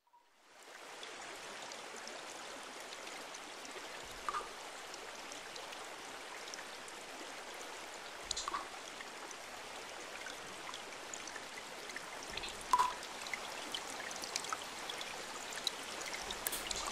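Steady trickling of running water, fading in over the first second, with a short clear drip-like note about every four seconds.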